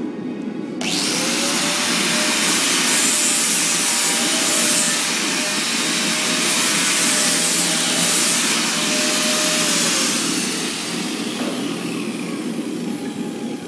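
Handheld electric angle grinder starting up about a second in and grinding on a hardened, quenched Damascus steel knife blade held in a vise, with a steady motor whine under the hiss of the disc. It eases off and winds down over the last few seconds. A low workshop rumble runs underneath.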